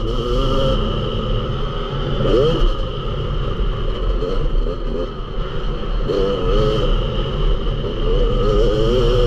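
Yamaha YZ250 motocross bike's engine heard from on board while riding, its pitch rising and falling over and over as the throttle is opened and closed.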